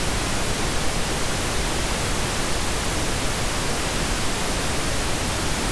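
Steady hiss spread evenly from low to high pitches, unchanging throughout, with nothing else on top: the recording's background noise between narrated lines.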